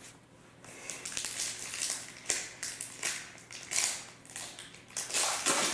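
Foil hockey card pack wrapper crinkling and tearing as a pack is opened, in a string of short, irregular rustles.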